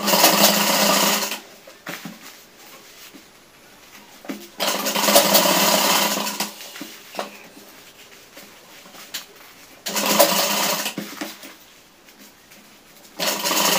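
Sewing machine stitching along the welt of a trouser back pocket in short runs: four bursts of a second or two each, about a second in, about five seconds in, about ten seconds in and near the end, with quieter gaps as the fabric is repositioned.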